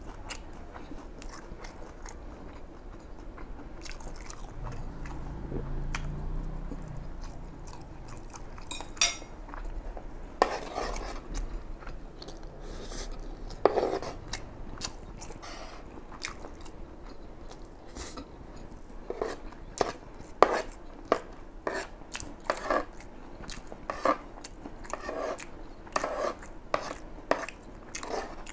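Close-miked chewing of fried rice, with many short wet smacks and clicks. A fork and a wooden spoon clink and scrape against a serving tray as rice is scooped up; the smacks and clicks come more often in the second half.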